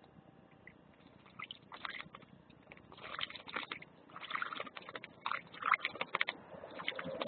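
Goldfinches and a starling bathing in a shallow stone basin: clusters of quick, small splashes in the water. The splashing starts about one and a half seconds in and comes in several spells, busiest past the middle.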